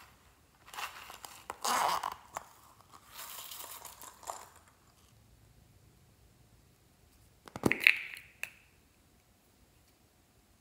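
Small plastic containers handled close to the microphone: a few seconds of crinkling and crunching, then a sharp plastic click with a brief ring near 8 seconds.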